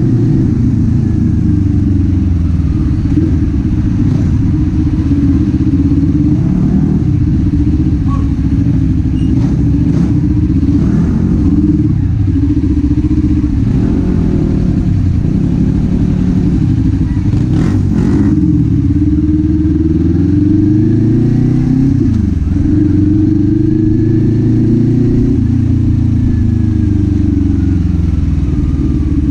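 Kawasaki Z400's parallel-twin engine and exhaust under way, its pitch rising and falling repeatedly with throttle and gear changes, with a sharp drop and climb about two-thirds of the way through.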